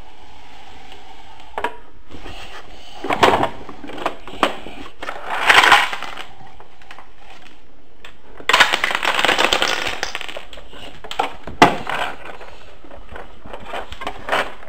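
Toy garbage truck and its toy trash being handled: scattered knocks and clicks, a short scraping rattle about a third of the way in, and a longer rattle lasting about two seconds a little past halfway, with a sharp knock near the end.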